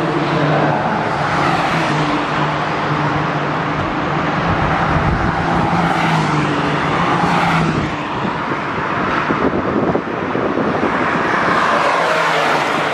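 Race cars passing close by at speed, several in succession, loud engine sound rising and falling as each goes past.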